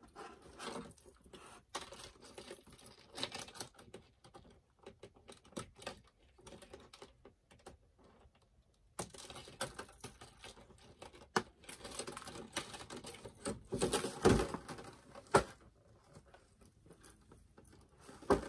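Scissors snipping and small plastic doll-accessory packaging being handled: irregular small clicks and taps, with a few louder clicks about three quarters of the way through.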